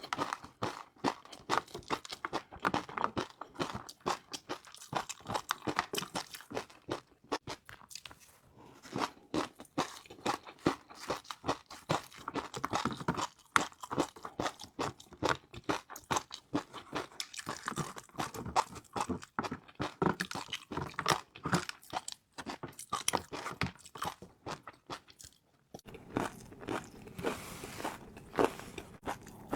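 Close-miked eating sounds: crunching and chewing crispy fried noodles, a rapid, irregular run of crisp crunches with short lulls between mouthfuls.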